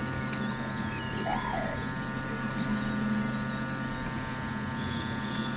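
Hot air rework station running: a steady electrical hum with many overtones under a hiss of blowing air.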